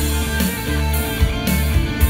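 Violin played over an amplified backing track with a bass line and a drum kit keeping a steady beat.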